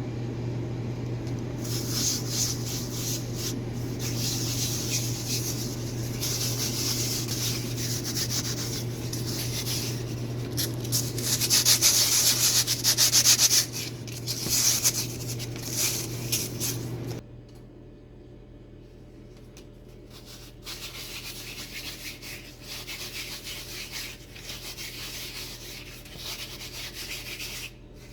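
Dry, scratchy rubbing as oil is spread by hand over an uncooked urad papad, loudest in the middle and going on more quietly in the second half. A steady low hum underneath stops about 17 seconds in.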